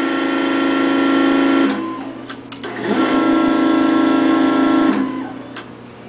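Electrohydraulic damper actuator's brushless motor and gear pump whining steadily as the drive strokes, twice, about two seconds each with a short pause between. Each run stops cleanly when the drive reaches position.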